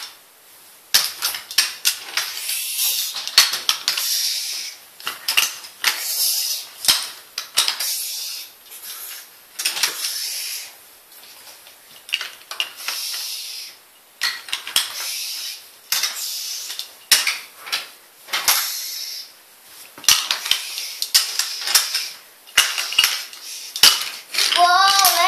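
Small toy trains pushed by hand along a wooden railway track, rattling and clacking, with many sharp clicks and knocks as the pieces bump together and over the track joints.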